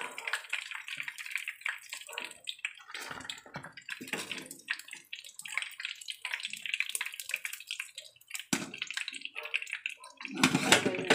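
Battered chicken pieces deep-frying in hot oil: a steady crackling sizzle with a louder stretch near the end.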